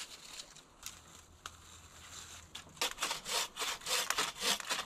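Faint rustling, then about three seconds in a hand saw starts cutting a branch with a fast, regular run of back-and-forth strokes.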